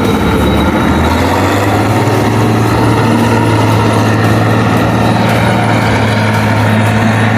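Diesel engine of a harvest machine (combine or tractor) running steadily and loudly, close to the microphone. Its note shifts slightly about a second in, then holds steady.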